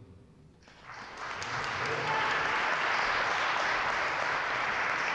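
Audience applauding, starting just under a second in and building quickly to steady, dense clapping.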